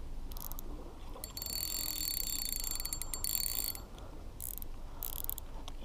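Spinning reel ratcheting in runs of fast, high clicks while a hooked fish is played: a short run, then one of about two and a half seconds, then two short runs near the end.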